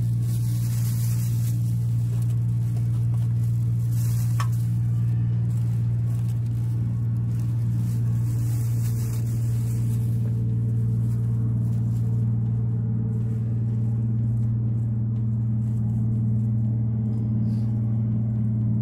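Steady low drone of a motorboat engine, an unchanging hum. Patches of hiss come and go, with a single sharp click about four seconds in.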